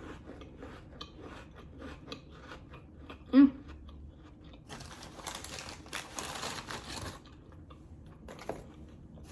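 Close-up chewing and crunching of crackers with smoked oysters: a run of small crunches and mouth clicks, then a louder crackling stretch of about two seconds past the middle. A short hum of the voice comes about a third of the way in.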